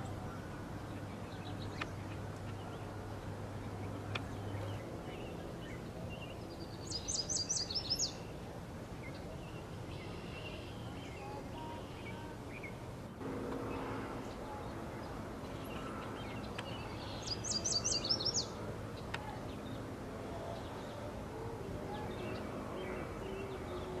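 Small songbirds singing and chirping over steady outdoor background noise, with two loud bursts of rapid, high, trilling notes, one about seven seconds in and another about seventeen seconds in.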